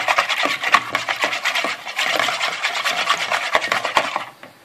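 Wire balloon whisk beating egg, milk and flour batter in a plastic bowl: rapid scraping strokes of the wires against the bowl, stopping shortly before the end.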